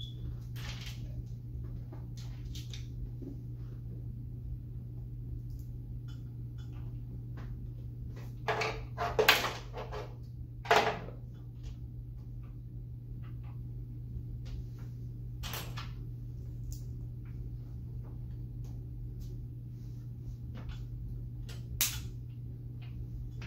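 Plastic Lego pieces being handled and pressed together: scattered small clicks, with a few louder clacks about nine to eleven seconds in, over a steady low hum.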